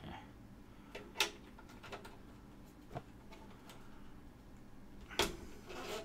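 Hands working cables and parts inside a computer tower case: scattered sharp plastic-and-metal clicks and knocks, the loudest about five seconds in, as a stubborn connector is forced into place.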